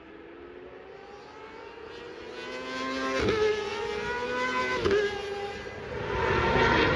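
Racing superbikes accelerating, engines climbing in pitch and dropping sharply at upshifts about three and five seconds in, then growing louder as more bikes come near toward the end.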